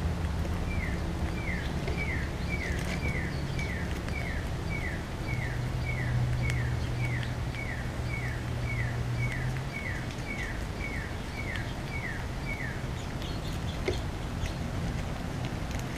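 A bird calling a long series of short, evenly repeated notes, each falling in pitch, about two a second, stopping near the end; a steady low hum runs underneath.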